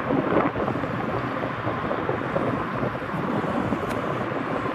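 Wind buffeting the microphone: a steady rushing noise with no distinct event in it.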